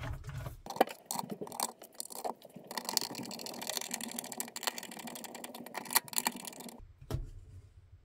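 Screwdriver driving screws into the plastic filter screen over a dishwasher's pump inlet: a run of small clicks and scraping. It is busiest from about three seconds in and stops shortly before the end.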